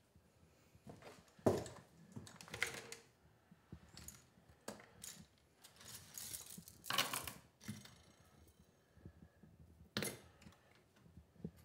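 Scattered light clicks, knocks and brief rustles, a second or a few seconds apart, as small objects are handled.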